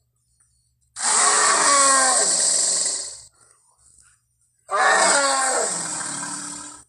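Two roars from a Triceratops creature sound effect, each about two seconds long and falling in pitch, the second starting about a second and a half after the first ends.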